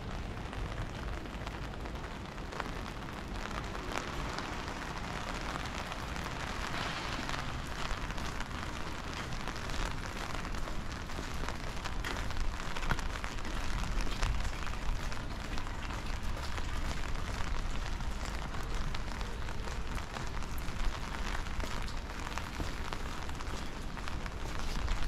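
Steady rain falling: a dense hiss with many small drop ticks, over a low rumble.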